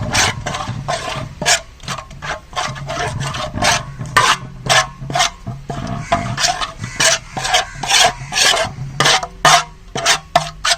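Thick masala paste of yogurt, spices and oil being stirred and scraped around a bowl, in repeated short scraping strokes about two or three a second.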